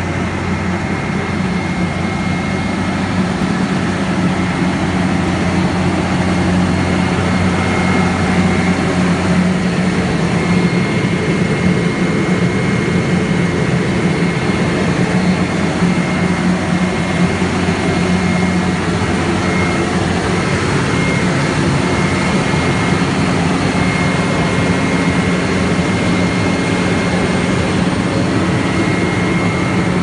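Vögele Super 1800-2 crawler asphalt paver's diesel engine running steadily at rest, a deep hum with a thin high whine over it.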